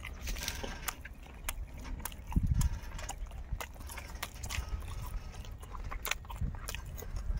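Goats grazing close by: a scatter of short, sharp clicks as grass is torn and chewed, over a low rumble, with a louder low thump about two and a half seconds in.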